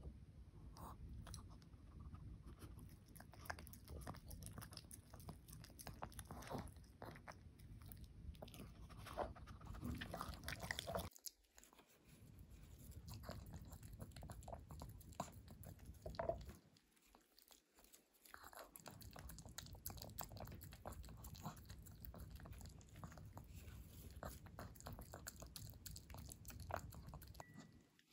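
Pomeranian chewing and smacking food taken from a spoon: a quiet, quick run of small wet clicks and smacks, broken by a short pause about eleven seconds in and a longer one around seventeen seconds.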